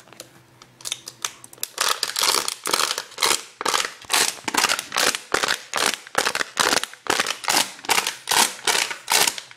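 Plastic drink bottle crinkling and crackling at the mouth in a quick, even rhythm of about three crackles a second.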